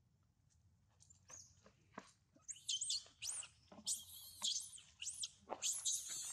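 Baby macaque screaming in distress as an adult monkey goes for it: shrill squeals that rise and fall, repeated again and again, starting about a second in and getting louder.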